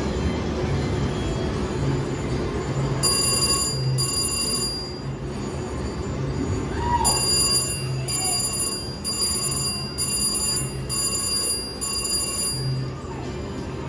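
VGT slot machine's electronic bell ringing in quick repeated pulses as winning credits count up on the meter, first briefly and then again for several seconds, over the steady din of a casino floor.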